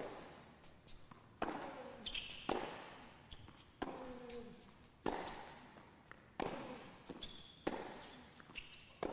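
Tennis rally on a hard court: racket strikes on the ball, about eight shots a little over a second apart, alternating between the two players.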